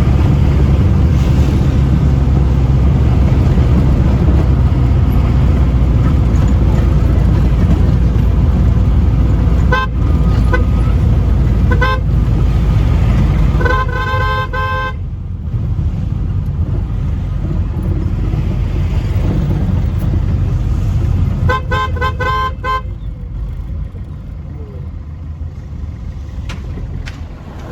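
Road vehicle driving, with a steady low engine and road rumble that eases about halfway through. A car horn gives short toots about ten and twelve seconds in, then a string of quick beeps around fourteen seconds and another around twenty-two seconds.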